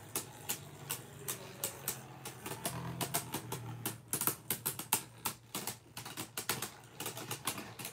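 Two Beyblade Burst spinning tops clashing and grinding against each other in a plastic stadium: rapid, irregular plastic clicks and ticks, several a second.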